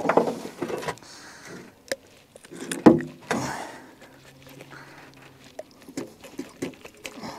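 Handling noise of a freshly caught fish being unhooked aboard a boat: scattered clicks and knocks, with one louder knock about three seconds in and a run of small clicks near the end.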